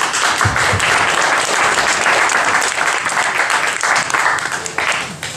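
Audience applauding, dense clapping that starts suddenly and dies down near the end.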